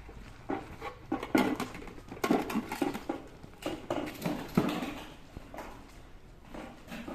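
An irregular run of short knocks and clattering strikes, densest in the middle and thinning toward the end, like hard objects or hand tools being knocked together.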